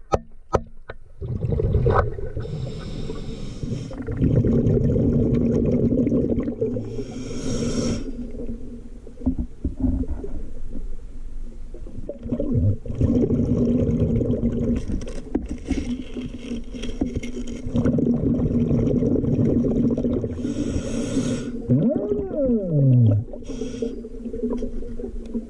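Scuba regulator breathing heard underwater: short hissing inhalations alternate with longer rumbling runs of exhaled bubbles. A few sharp knocks come at the very start, and a short falling whine comes near the end.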